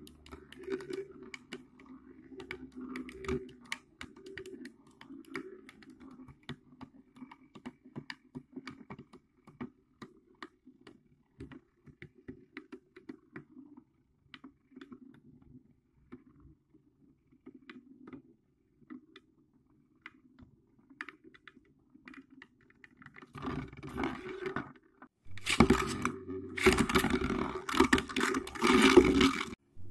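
Two beyblade spinning tops spinning in a plastic stadium: a faint steady hum with scattered light clicks. In the last few seconds it turns to loud rattling and scraping as the tops knock against each other and the stadium.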